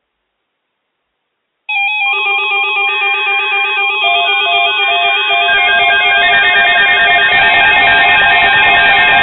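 Several weather alert radios going off together: overlapping electronic alarm beeps and warbling tones start abruptly about two seconds in, with more joining and the sound growing louder around four seconds in, signalling an incoming weather alert.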